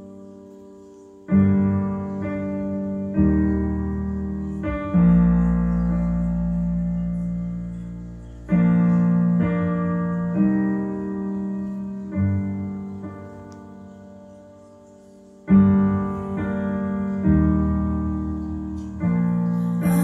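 Slow piano music: sparse chords and low notes struck one after another, each left to ring and fade. It is a recording played back over open-baffle hi-fi loudspeakers in a small room.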